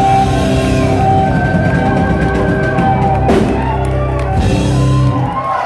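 Live rock band playing, with electric guitar, bass and drum kit, heard from within the audience. A sharp drum hit comes a little after three seconds, and the low end drops away near the end.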